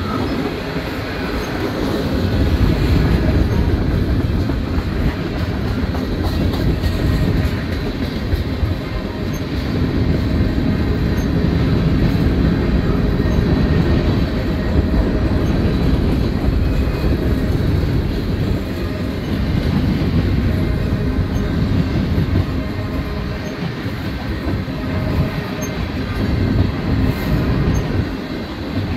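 Freight train's covered hoppers and tank cars rolling past close by: a loud, steady rumble of steel wheels on rail with some clickety-clack.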